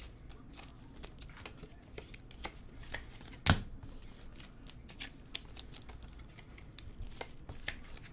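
Baseball trading cards being handled and slid against one another: scattered light clicks and rustles, with one sharper snap about three and a half seconds in.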